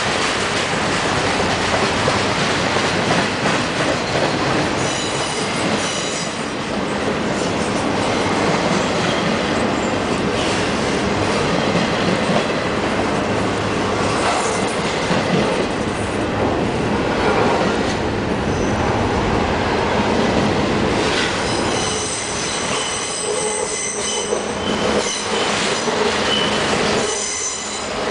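Double-stack container freight train rolling past close by: a steady rumble and rattle of wheels and well cars, with high-pitched wheel squeal about five seconds in and again for several seconds near the end.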